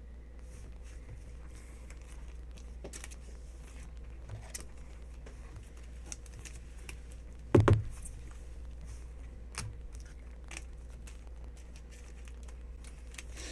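Trading cards and a clear plastic card sleeve being handled: soft rustles, small clicks and crinkles of card and plastic, with one louder thump about halfway through, over a steady low hum.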